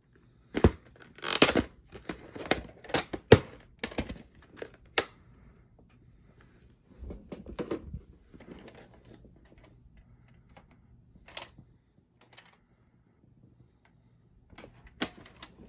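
A plastic VHS clamshell case being opened and the videocassette taken out and handled: a quick run of sharp plastic clicks and knocks over the first few seconds, some softer rubbing and scraping, then a few scattered single clicks.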